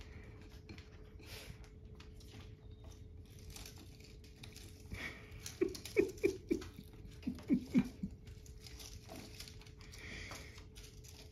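Small dog rummaging through a wooden half-barrel of kindling, sticks rustling, scraping and clattering against each other and the barrel as he digs for his chew toy, with a quick run of louder knocks about halfway through.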